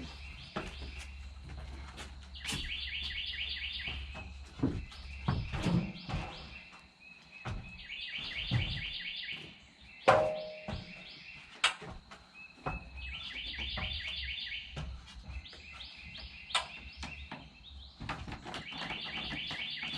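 A bird repeating a fast trilled phrase of about two seconds, every few seconds, with a few sharp knocks in between, the loudest about ten seconds in.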